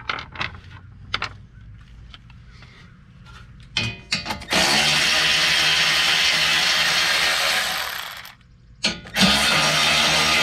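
Light clicks and knocks of hand work on metal parts, then a cordless electric ratchet runs for about four seconds at a stretch. It stops briefly and starts again, backing out a bolt on the UTV's exhaust heat shielding.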